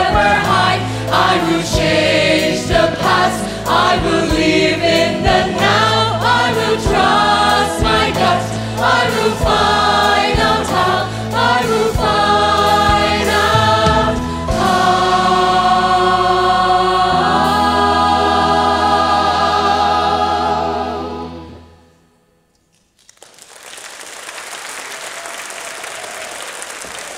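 A group of singers, cast and audience together, sings the closing song over backing music with steady bass notes and ends on a long held final chord that fades out. After a brief hush, an audience starts applauding.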